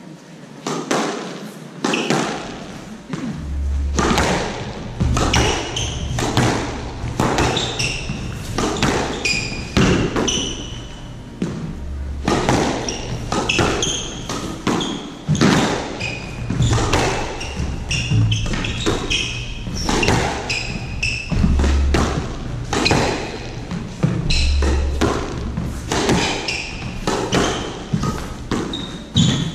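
Squash rally: the ball struck by rackets and cracking off the front and side walls about once a second, starting about two seconds in, with shoes squeaking briefly on the wooden court floor between shots.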